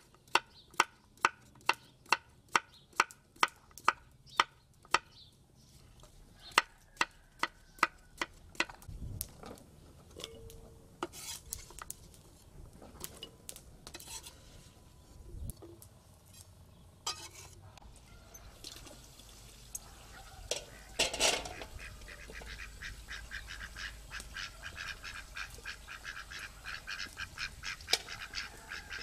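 Kitchen knife chopping pumpkin on a wooden cutting board: sharp strikes about two a second, thinning out to scattered cuts after about eight seconds. From about twenty seconds in, a fast, steady series of short repeated calls, about five a second, takes over.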